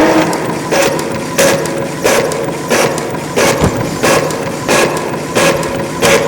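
Inkjet printer printing: the print-head carriage shuttles back and forth in a regular rhythm of about three strokes every two seconds. The recording is heavily reverberated and boosted to the point of distortion.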